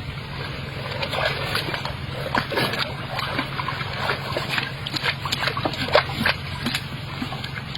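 Water splashing and sloshing in many short bursts over a steady low hum.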